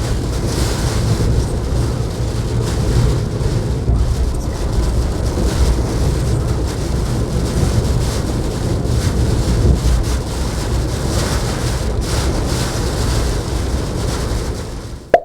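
Typhoon-force wind buffeting the microphone: a loud, steady low rumble that rises and falls with the gusts.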